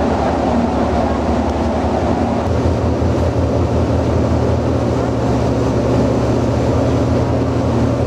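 Patrol vessel's diesel engines running under way as a steady low drone, with the churn of propeller wash along the hull. The engine note shifts about two and a half seconds in as the ship works away from the quay.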